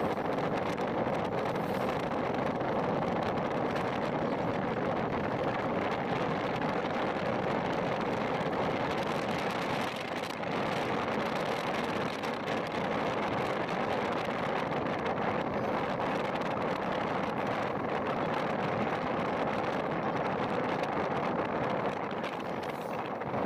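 Steady road and wind noise of a car driving at speed, an even rushing with no breaks.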